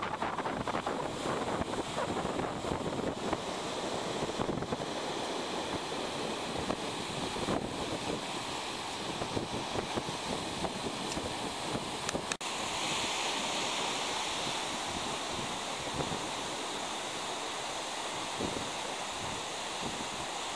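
Pacific Ocean surf washing and breaking on the beach, a steady rushing wash of waves with wind buffeting the microphone. The sound briefly drops out about twelve seconds in, at a cut between two recordings.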